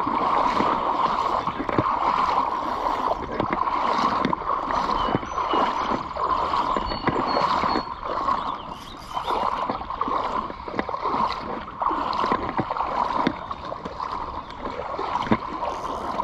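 Creek water running steadily over rocks, with scattered small clicks and splashes.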